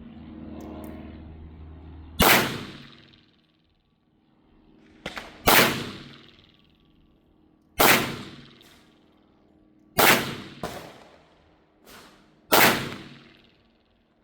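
Five shots from a .410 revolver shotgun firing slugs, spaced two to three seconds apart, each with a fading echo. A few faint clicks fall between some of the shots.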